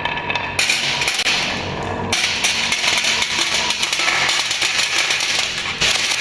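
Balls rolling and clattering down a wooden marble run: a dense, continuous stream of clicks and knocks that changes character abruptly a couple of times.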